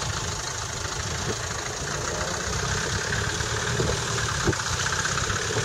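Short-wheelbase Land Rover 90 engine running steadily at low revs as the vehicle crawls over rough muddy ground, with a few faint knocks.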